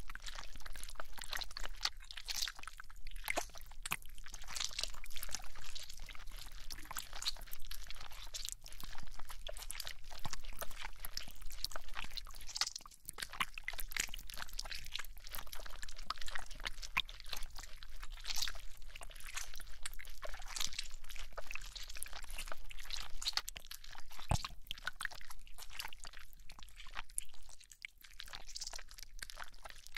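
Toy slime squished and kneaded by hand close to the microphone: a dense, continuous run of wet clicks and crackles, easing off briefly about thirteen and twenty-eight seconds in.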